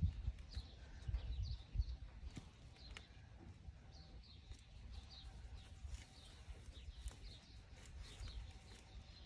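Small birds chirping on and off, short high chirps scattered throughout, with a few dull low thumps in the first two seconds.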